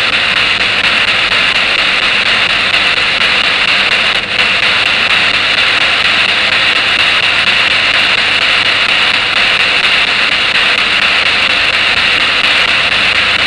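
Spirit box sweeping through radio stations, giving a steady loud hiss of static with a brief dip about four seconds in.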